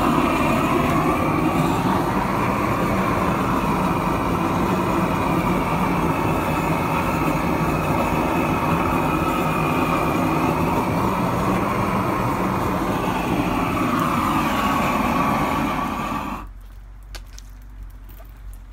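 Propane roofing torch burning steadily at full flame, a loud, even rushing noise. It cuts off suddenly about two seconds before the end.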